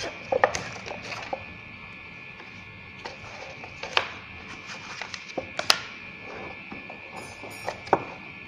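Cardboard and paper packaging being handled: a phone box's cardboard insert and paper leaflets slid out and set down, with a scatter of sharp taps and clicks, the loudest about four, five and a half and eight seconds in.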